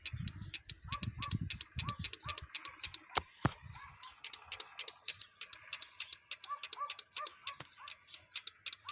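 MTZ-80 tractor's diesel engine running with a sharp, regular ticking knock from the cylinder head, several ticks a second, brought out by pressing on a hose; the owner takes it for an injector nozzle knocking.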